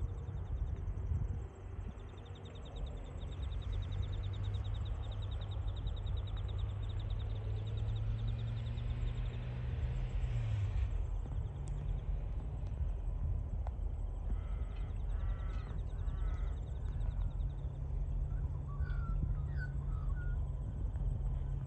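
Open-air rural ambience with a steady low rumble, and a crow cawing three times a little past halfway, then softer bird calls near the end.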